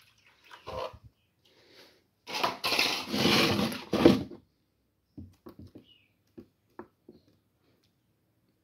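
Water poured from a small plastic betta cup into a tub, a splashy pour of about two seconds, followed by a string of light taps of plastic.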